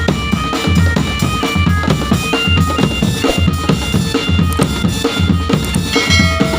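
Marching drum band playing a tune: a sustained melody line over a steady bass drum beat, about one stroke a second, with snare drum strokes between.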